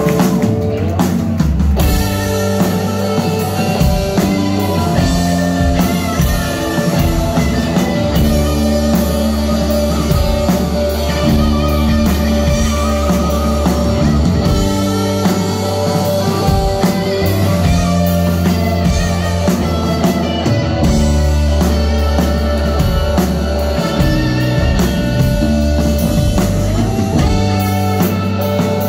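Live rock band playing an instrumental passage on guitar and drum kit. The full band comes in about a second in, after held, sustained tones.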